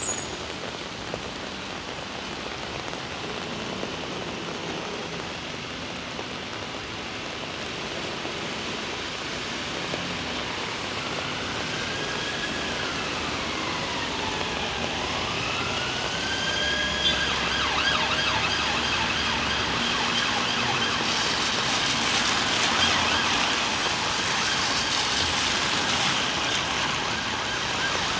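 Steady heavy rain hiss, with an emergency vehicle's siren approaching over it. The siren enters about ten seconds in as a slow rising-and-falling wail, turns to a fast warble about twenty seconds in, and keeps getting louder.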